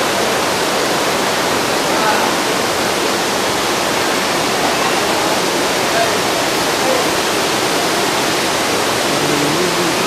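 Steady rushing of a waterfall, an even roar of falling water that does not change.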